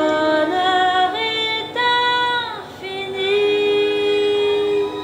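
Background music: a woman singing long held notes without words, with a short falling slide and a brief dip about two and a half seconds in.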